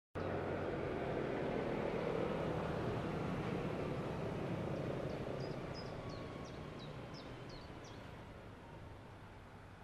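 Steady outdoor background rumble with a low hum, slowly fading. About five seconds in, a small bird sings a run of short, high, falling notes for about three seconds.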